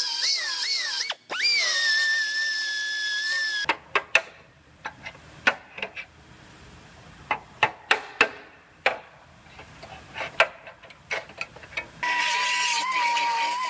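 Narrow belt sander (belt file) running against the sheet-metal seam of a car body, its whine dipping in pitch under load, cutting out briefly and spinning back up. It then falls silent for several seconds of scattered sharp clicks and knocks, and starts running steadily again near the end.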